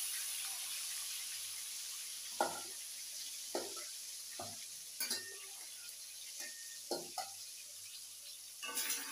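Fish sizzling as it shallow-fries in hot oil in a metal kadai, with a spatula knocking and scraping against the pan several times from a couple of seconds in.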